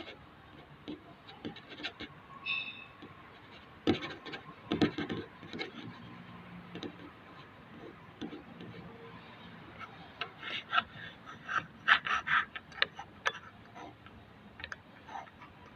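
Irregular knocks, clatter and scraping of hands and tools at work, with a short squeak about two and a half seconds in. There are dense runs of knocks around four to five seconds in and again from about ten to thirteen seconds in.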